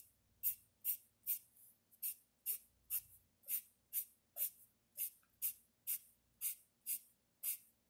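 Pencil scratching short hatch strokes across drawing paper, in a steady rhythm of about two strokes a second.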